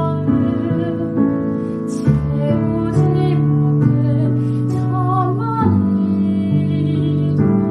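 Female singing in a slow duet for Western classical soprano and jeongga (Korean traditional lyric singing), with sustained vibrato notes over instrumental accompaniment.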